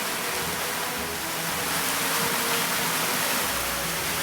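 Steady rushing noise of falling water from a waterfall.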